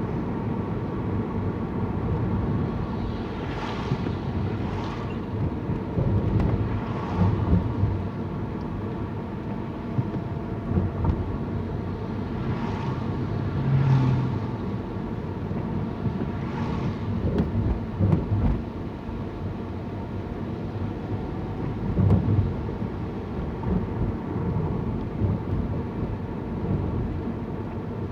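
Car road and engine noise while driving: a steady low rumble, with brief swishes now and then.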